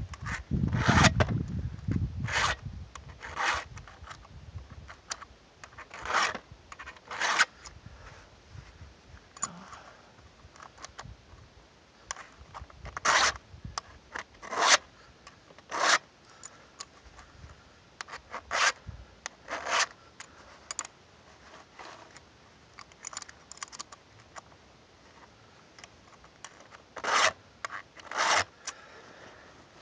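Single strokes of a flat file over the depth gauges (rakers) of a chainsaw chain, a short metal-on-metal rasp every second or two with pauses between. A low rumble runs through the first few seconds.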